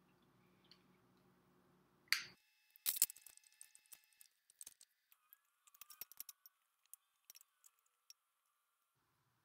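Faint kitchen handling sounds: scattered clicks and light taps as beet slices are tossed in a glass mixing bowl and laid out on a baking stone, with a couple of sharper knocks about two and three seconds in.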